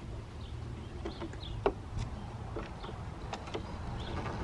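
A few light clicks and knocks as hands work at the wooden console's record-player panel and knobs, the sharpest about a second and a half in, over a steady low rumble.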